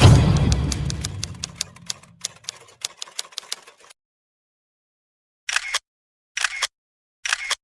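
Intro music with a clicking beat fading out over about four seconds. After a second of silence come three short, sharp clacking sound effects about a second apart, like typewriter or shutter clicks.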